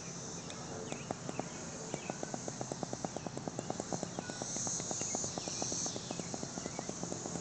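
Outdoor insect chorus of cicadas, with a high buzz that swells twice near the middle, over a rapid, even ticking of about five ticks a second.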